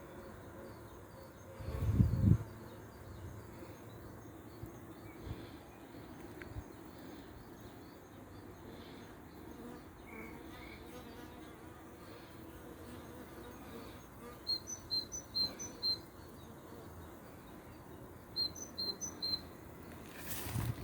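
Honeybees buzzing around a swarm trap in a steady low hum. A bird chirps in two short runs of three or four high notes in the second half, and a brief loud low thump comes about two seconds in.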